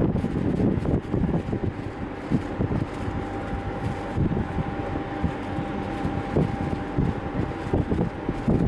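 Train approaching on the line: a low rumble with a faint steady whine, and wind buffeting the microphone.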